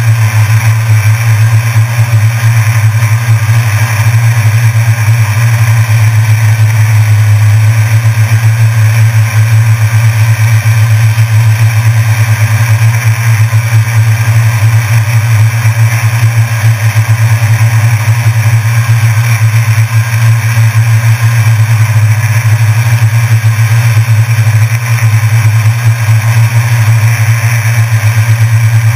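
Drone's propellers and motors, heard close up from the camera it carries: a loud, steady buzzing hum at an unchanging pitch as it hovers low.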